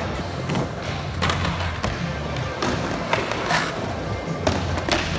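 Skateboard in use: wheels rolling and several sharp clacks and knocks of the board at irregular moments, over music with a low bass line.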